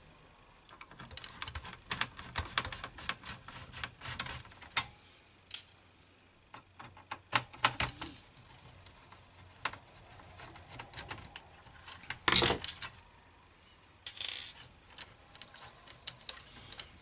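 A screwdriver backs out the small screws holding a floppy disk drive in a metal frame, with irregular metallic clicks and scrapes. A louder knock comes about twelve seconds in as the drive is handled.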